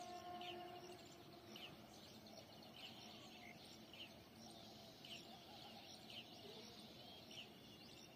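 Faint bird calls: a short high chirp repeated roughly once a second. A faint steady hum stops about a second in.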